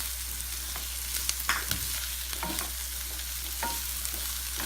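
Chopped garlic, onions and green chillies sizzling in olive oil in a pan, with a few sharp clicks of a utensil stirring them.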